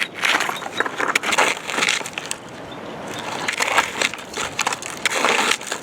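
Gritty crunching and scraping of a plastic toy backhoe digging in coarse sand and dirt, in irregular bursts with a quieter spell midway.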